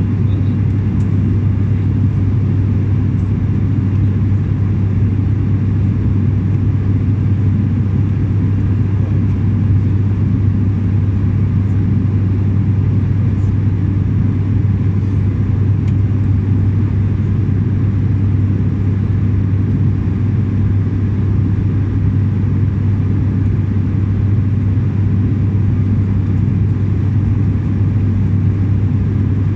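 Cabin drone of an ATR 72-600 turboprop in flight, heard inside the cabin: a steady, loud low hum from the six-bladed propellers with a rush of engine and airflow noise, unchanging throughout.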